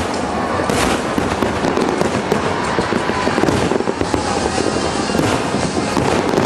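Fireworks display with many shells bursting in quick succession, overlapping bangs and crackle merging into a steady barrage.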